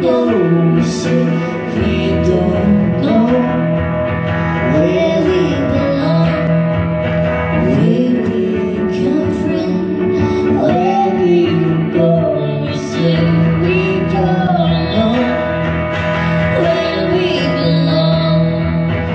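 Live pop-folk duo: a woman singing a gliding melody over keyboard and guitar, with a steady low note held underneath.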